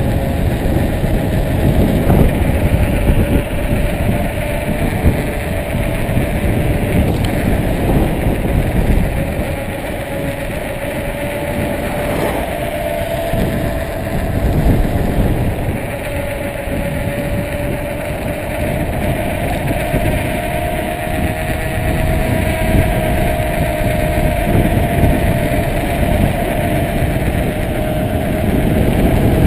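Wind buffeting the camera's microphone during a fast bicycle descent on asphalt, with a heavy uneven rumble and a faint steady whine that drifts slightly higher in pitch.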